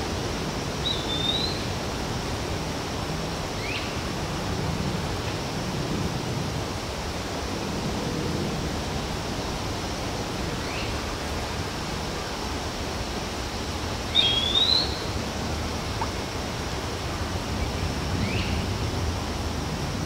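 Outdoor nature ambience: a steady, even noise bed with a low rumble underneath, and a bird giving short rising calls every few seconds, about five in all, the loudest about fourteen seconds in.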